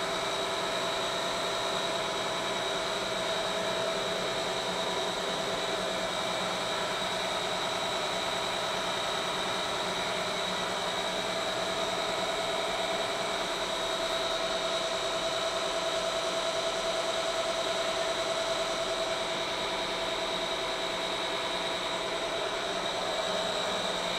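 Electric-motor-driven plastic reprocessing machinery, a drum-type plastic mixer and a granule-making (dana) machine, running steadily with a constant hum and whine that holds the same speed throughout.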